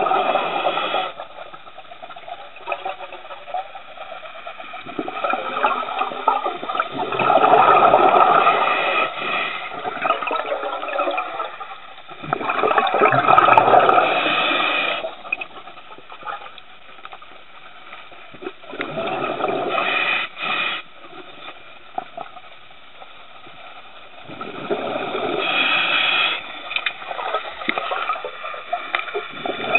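Scuba diver breathing through a regulator underwater: exhaled bubbles rush and gurgle in bursts of two to three seconds, about every five to six seconds, with quieter intakes between.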